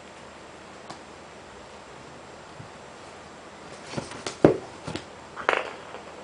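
A steady faint hiss, then a short cluster of knocks and rustles a little over halfway through, the loudest knock in the middle of it.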